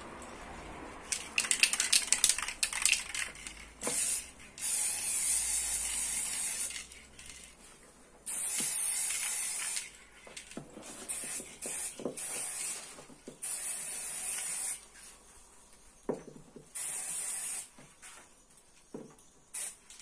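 Aerosol spray-paint can: a quick rattle about a second in, as of the can being shaken, then several bursts of spraying hiss, each one to three seconds long.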